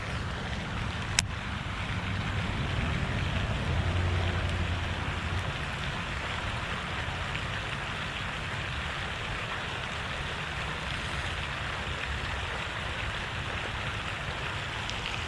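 Steady rushing splash of water from a pond fountain, with a low wind rumble on the microphone that swells a few seconds in. A single sharp click sounds about a second in.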